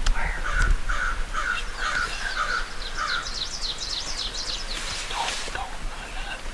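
A crow cawing, a run of about seven caws in the first three seconds. Overlapping and following them, a small bird gives a fast series of high, falling chirps.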